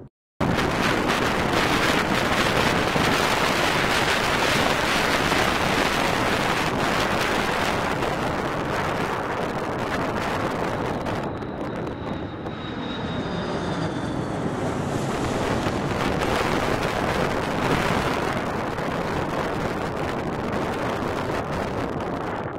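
KLM Airbus A330 jet engines on final approach with the landing gear down, passing low overhead: a steady loud jet roar, with a high whine that falls in pitch about halfway through as the aircraft goes over. Wind buffets the microphone.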